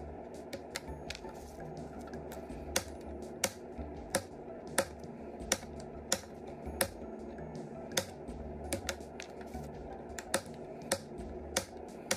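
Hobby knife clicking as its blade snaps through the thin plastic spacers between the ties of model railroad flex track. It makes a run of sharp clicks, roughly one or two a second, played at double speed.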